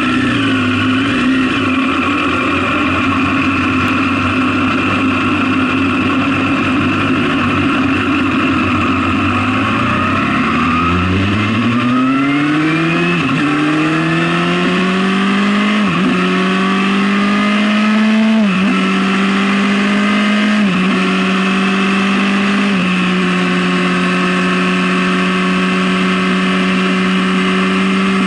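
Sport motorcycle's engine idling, then pulling away about ten seconds in and accelerating through five upshifts, the revs climbing and dropping back at each gear change, before it settles at steady revs.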